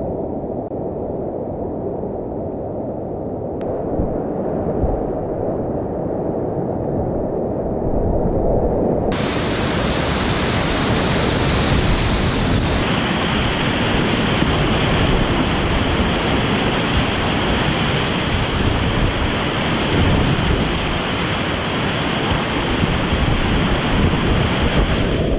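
Steady rushing of whitewater rapids heard up close from a kayak running the rapid. The rush is muffled for the first nine seconds or so, then turns fuller, brighter and a little louder.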